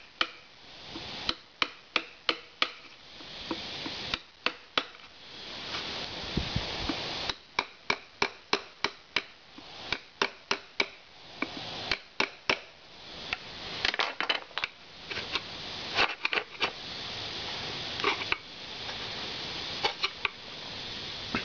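Steel screwdriver tip jabbing and scraping at hardened builder's glue and a glued wood strip on a ceramic tile. It makes sharp clicks, several a second, in runs with scraping between.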